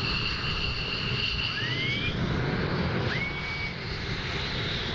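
Twin RB199 turbofans of a departing Panavia Tornado rumbling in the distance as it climbs away after an afterburner take-off. A high whine fades out about two seconds in, and three short rising whistles are heard.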